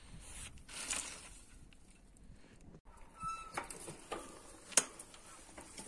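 Faint rustling as a bicycle tyre is handled, then a few sharp clicks about half a second apart, the loudest near the end.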